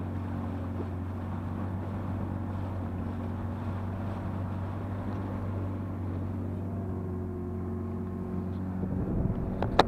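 1988 Johnson 28 hp two-stroke outboard motor running steadily at cruising speed, driving a 14 ft aluminum boat. Near the end there is a low rumble and then one sharp knock.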